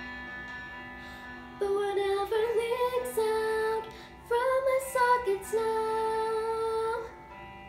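A young woman singing a slow, gentle melody in phrases over held instrumental accompaniment. The voice comes in about a second and a half in and drops out near the end, leaving the accompaniment alone.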